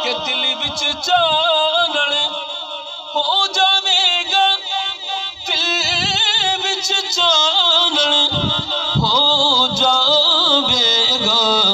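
A man singing a Punjabi devotional kalam (naat) into a microphone, in long drawn-out phrases with a wavering, ornamented pitch and short breaths between lines.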